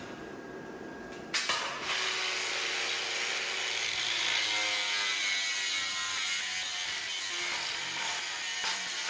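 A power tool starts about a second and a half in and runs steadily on metal, making a broad grinding hiss whose pitch drifts slightly as it is worked.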